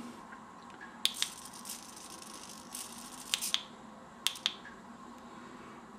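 Small hobby servo in a model-railway point-motor mount, driven by a hand-held servo tester to centre it: faint short whirring movements with a few sharp clicks, the last clicks about four and a half seconds in.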